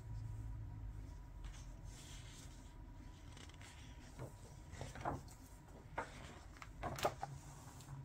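Paper rustling and soft taps as a gloved hand turns the page of a hardback picture book, with a few short swishes, the loudest about seven seconds in.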